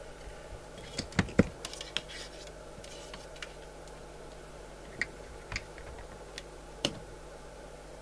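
Scattered sharp clicks and light knocks of tools and equipment being handled on a workbench, a cluster in the first couple of seconds and a few single clicks later. A steady low hum runs underneath.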